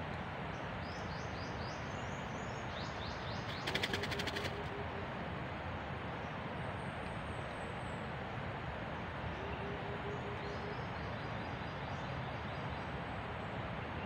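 Forest ambience: a steady hiss with high bird chirps in the first few seconds. About four seconds in comes a brief, fast rattle of clicks, and a low short note repeats in quick runs twice.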